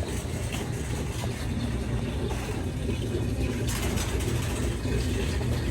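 Rain falling on a van's roof, heard from inside the van: a steady hiss of drops with a low rumble underneath.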